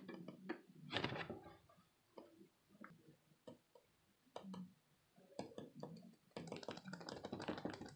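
Faint clicks, taps and rustling of small plastic toy figures and dollhouse pieces being handled, with a denser run of ticks near the end.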